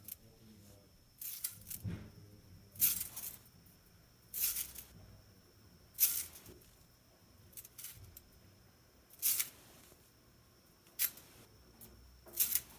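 Metal slinky being worked, its coils clinking and rattling in short bursts about every one to two seconds.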